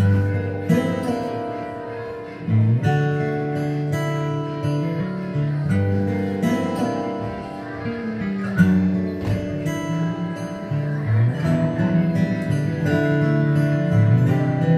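Acoustic guitar strumming slow chords, with each chord held for a second or two.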